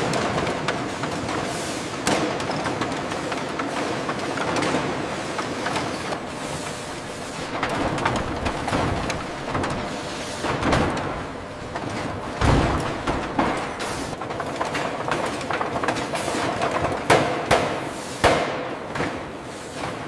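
Heavy factory machinery running with a dense mechanical din and repeated metallic clanks and thuds, as metal presses forming sheet steel. The sharpest knocks come in the second half, with a cluster near the end.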